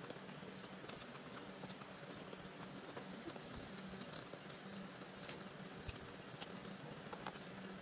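Faint, scattered small clicks and taps of fingers picking fried tilapia flesh off the bones on a plastic plate, over a steady faint hum and hiss.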